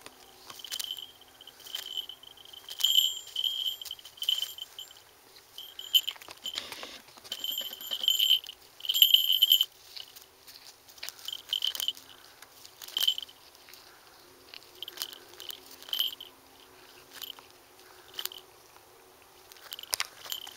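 A falconry bell jingling in irregular bursts of high ringing as the falcon tugs and plucks at the duck, with short sharp rips of feathers being torn out.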